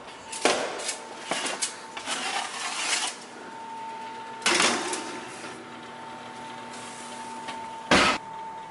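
Metal sheet pan clattering and scraping as it is handled and slid onto the oven rack, with a loud knock about halfway through, and the oven door shutting with a loud bang near the end. A steady whine of the convection fan runs under it once the oven is open.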